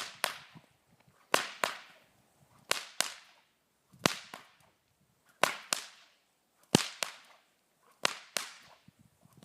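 Whip being cracked in a steady rhythm: pairs of sharp cracks about a third of a second apart, a new pair roughly every second and a third, about seven pairs in all.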